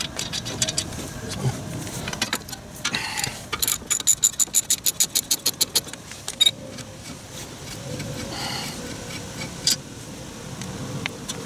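Hand socket ratchet clicking quickly, about seven clicks a second for a couple of seconds, as it spins a brake caliper bracket bolt out; a single sharp metal clink follows, amid light clatter of metal parts being handled.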